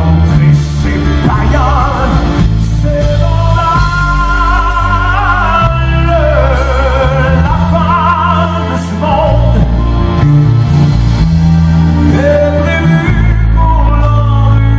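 Live music: a male singer holds long, high notes with a wide vibrato over a band's sustained accompaniment with a heavy low end.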